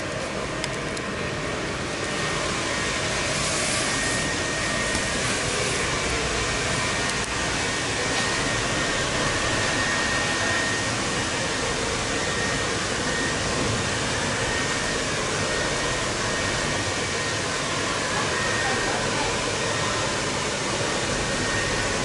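Electric inflation blower running steadily inside an inflatable photo booth: a dense, even rush of air with a faint steady whine.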